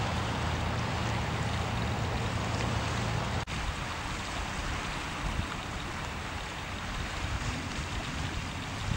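Wind rushing on the microphone, with the low steady drone of a passing motor barge's engine underneath. About a third of the way in, the sound drops out abruptly and the drone is gone, leaving only the wind.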